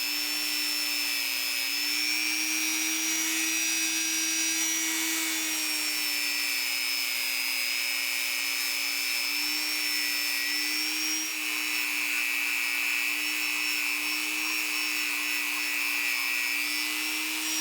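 Small power tool spinning a fine-grit abrasive scrubby wheel against a metal tool handle: a steady motor whine whose pitch sags and recovers slightly as the wheel is pressed on and eased off.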